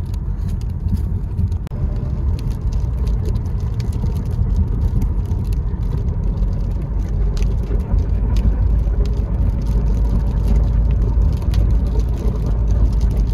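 Car driving, heard from inside the cabin: a steady low rumble of road and engine noise, with scattered faint ticks of light raindrops hitting the windshield.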